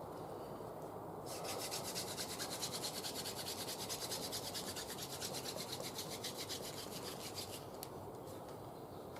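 Hand drill friction fire: a wooden spindle spun between the palms and grinding into a wooden hearth board, with a fast, even rasping rhythm. The rasping starts about a second in and stops a couple of seconds before the end.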